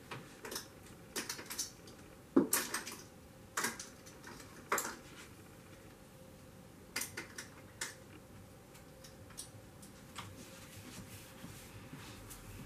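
Someone rummaging among small objects: scattered clicks and light knocks, the loudest about two and a half seconds in.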